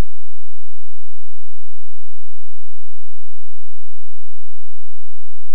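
A loud, steady electronic tone held at one pitch, with a flickering low buzz beneath it. There is no sound of the cash drawer.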